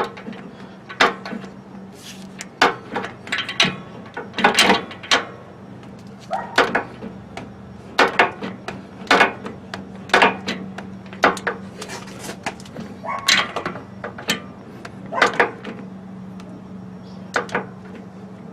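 Sharp metallic clicks of a ratchet wrench tightening the catalytic converter's flange bolts to 22 lb-ft, coming roughly once a second at uneven spacing, some in quick pairs. A faint steady hum runs underneath.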